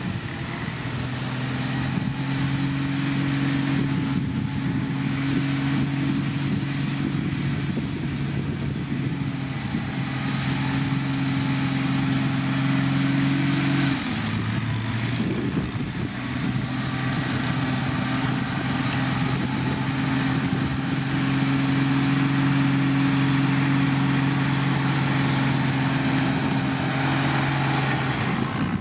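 Heavy diesel engine of road-building machinery running steadily under work; its pitch drops for a moment about halfway through, then returns to the same steady note.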